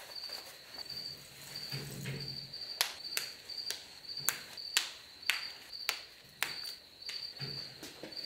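Snap fasteners clicking shut, about a dozen sharp clicks over a few seconds, as a leather welding sleeve is snapped onto a work jacket. Under the clicks runs a steady, high-pitched chirping that pulses about twice a second.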